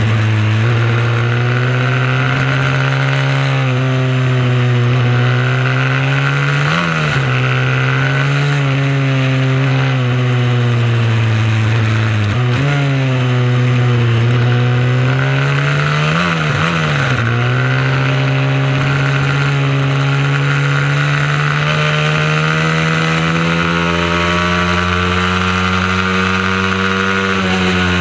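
Mini motorcycle engine running hard at high revs. Its pitch drops and jumps several times as the rider shifts and brakes, then climbs steadily over the last several seconds.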